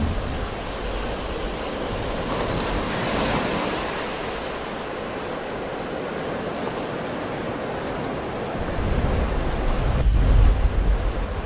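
Sea waves breaking and washing on the shore as a steady rushing surf, swelling about two to four seconds in. Near the end, wind buffets the microphone with a low rumble, and the sound grows louder.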